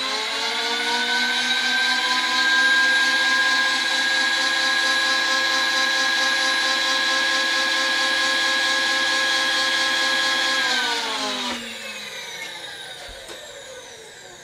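Grizzly G1007 mill-drill's motor and spindle drive running with a steady whine, then winding down from about eleven seconds in, the pitch falling as it coasts to a stop over about three seconds.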